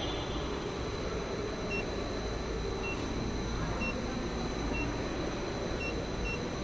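Short electronic key-press beeps, about six, from the keypad of an automotive AC recovery and recharge machine as its menu buttons are pressed, over a steady background hum.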